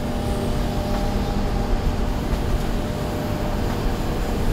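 Diesel engine of a Kobelco SK210 tracked excavator running steadily under work as it swings a bucket of broken asphalt over a dump truck: a continuous low rumble with a faint steady hum.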